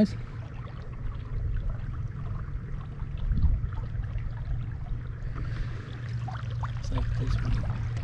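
Small fishing boat moving slowly along the river: a steady low hum with water running along the hull.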